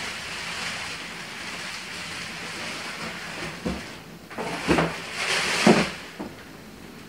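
Plastic wrapping and a cardboard box being handled. A steady rustling hiss gives way, about four to six seconds in, to several louder knocks and rustles.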